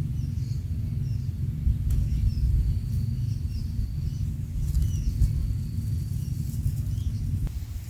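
Quail giving short, faint, high chirps over a steady low rumble that is the loudest sound throughout.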